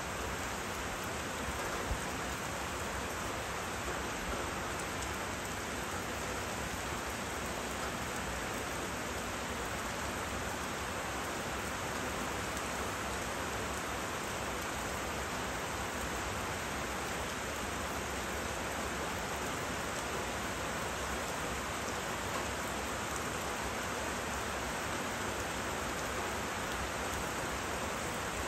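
Steady rain falling over forest, an even, unbroken hiss.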